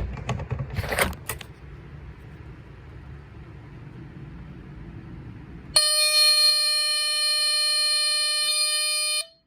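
Pifco 1377 smoke alarm (UK version of the Honeywell CD200A) sounding its test alarm: after a wait of several seconds it starts a loud, steady alarm tone about six seconds in, then cuts off suddenly just after nine seconds. Before the tone, a few handling clicks and knocks, then a low hum.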